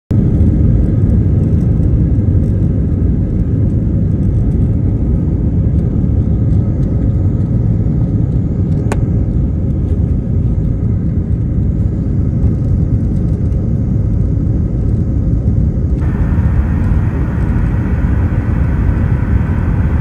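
Jet airliner cabin noise at a window seat over the wing while the plane rolls on the ground: a loud, steady low rumble of engines and wheels. A single sharp click comes about nine seconds in, and a brighter hiss joins about sixteen seconds in.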